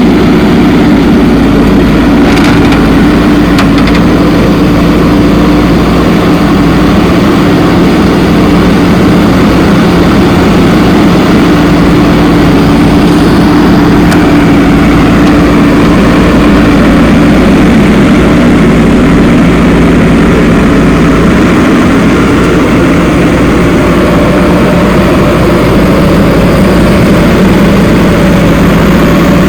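Diesel engine of heavy earth-moving machinery running steadily, a constant low hum with no pauses.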